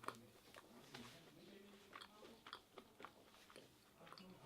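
Faint chewing with small, irregular mouth clicks close to the microphone.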